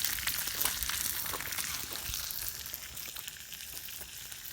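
Small fish frying in hot oil in a pan: a dense crackling sizzle with many small pops, getting gradually quieter toward the end.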